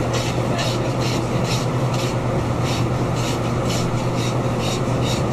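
Hand meat saw cutting through beef loin bone in steady back-and-forth strokes, about two to three rasping strokes a second, over a steady low hum.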